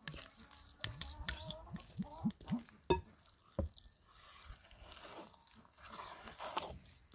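Wooden spoon stirring a thick, oily jujube paste in a glass bowl: irregular wet squelching and smacking, with two sharp knocks of the spoon on the glass about three and three and a half seconds in.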